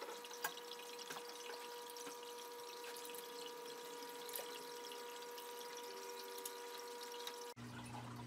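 Fast-forwarded room sound from a running reef aquarium: a steady water trickle, with the pump's hum sped up into a higher steady tone. Scattered light clicks and knocks come from handling the LED light fixture.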